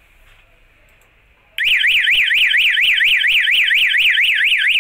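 Small red electronic alarm siren wired to a photo beam sensor kit starts suddenly about a second and a half in, then sounds a loud, fast warbling tone that rises and falls about five times a second. It is the alarm set off when the sensor's beam is broken.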